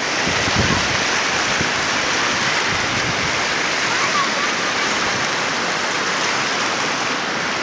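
Rushing water: a shallow river running fast over flat rock slabs at the brink of a waterfall, a steady unbroken rush.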